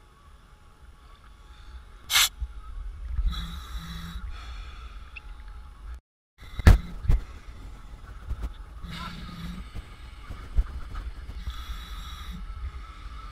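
Sea water sloshing and lapping around a camera at the surface, heard muffled through its waterproof housing as a low rumble with a few sharp knocks and splashes.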